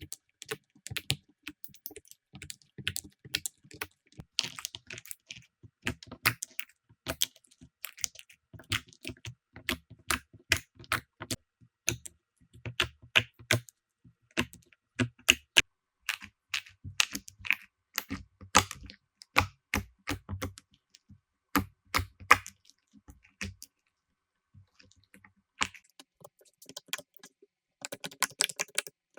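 Slime being squeezed and pressed by hand, giving a dense, irregular run of sharp clicks and pops, with a brief lull a little past three quarters of the way through.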